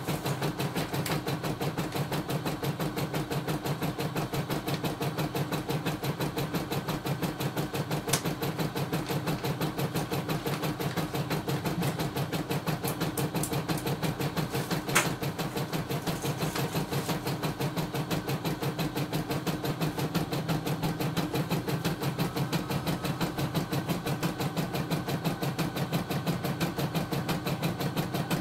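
CNY E960 computerized embroidery machine stitching at speed: a steady, rapid, even needle rhythm, running smoothly without trouble, with a sharp click about a third of the way in and a louder one about halfway through.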